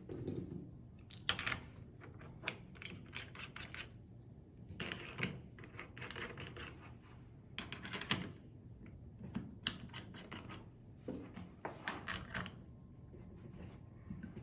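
Tool cart parts being handled and fitted together: an uneven string of light clicks, taps and scrapes.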